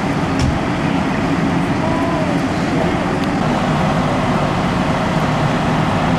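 A fire engine's diesel engine running steadily, a loud, even drone with no change in pitch.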